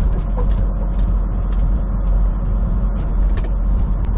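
Semi truck on the move, heard from inside the cab: a steady low engine and road drone, with frequent short creaks and rattles.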